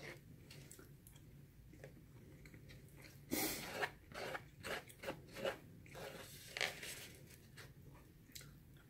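Eating sounds close to the microphone: chewing a mouthful of curry and rice, with a plastic fork working in a plastic takeout container. A run of louder, short crackling sounds comes about three to seven seconds in.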